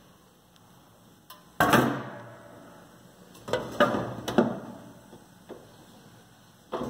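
A few sharp knocks and clatters against a faint background: one loud knock about a second and a half in, a quick run of several more a couple of seconds later, and another near the end.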